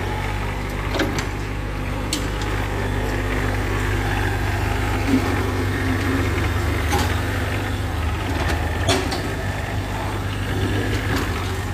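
Hitachi EX15-2 mini excavator's diesel engine running steadily as the machine swings round and moves on its tracks, with a few sharp knocks.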